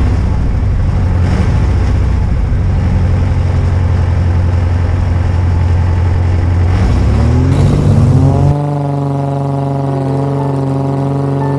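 Jabiru 2200A four-cylinder air-cooled engine of an Avid Flyer MK4 light aircraft running with its propeller turning, heard loud and rough from inside the cockpit. Around seven seconds in the pitch rises. From about eight and a half seconds on it is a steadier, clearer engine tone heard from outside the aircraft.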